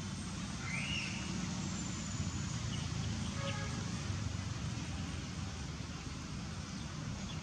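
Steady low rumble of distant road traffic. A short high chirp rises and falls about a second in, and a brief call sounds around three and a half seconds.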